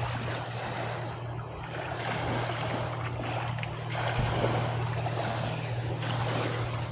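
Ocean surf washing onto a beach, a steady rush that swells and eases.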